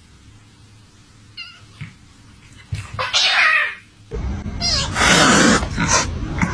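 Domestic cats meowing: two short, faint meows, then a long, loud meow that rises and falls. About four seconds in, louder and harsher cat yowls begin.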